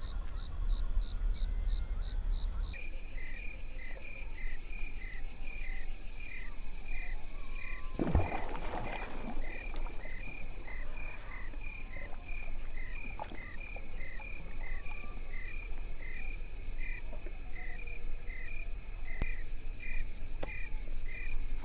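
Rhythmic chirping of a small calling animal, short evenly spaced chirps about two a second, dropping lower in pitch about three seconds in, over a steady low hum. A brief splash-like rustle comes about eight seconds in.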